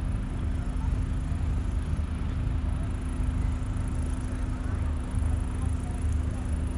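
Wind buffeting the camera's microphone: a low rumble that keeps swelling and easing, over a faint steady hum.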